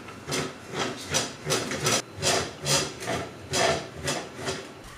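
Plastic filament spool turning on a 3D printer's spool holder that has no bearings, making a string of short rasping, farting noises, about two or three a second. It is the plastic rubbing as the spool rotates, the noise that the maker means to cure by fitting ball bearings.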